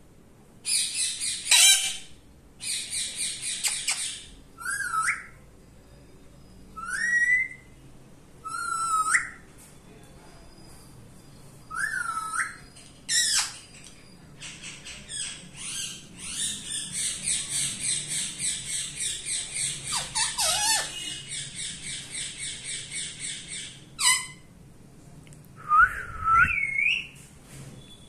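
Indian ringneck parakeet calling: harsh screeches mixed with short rising whistles, and a long run of quick repeated calls for several seconds midway through.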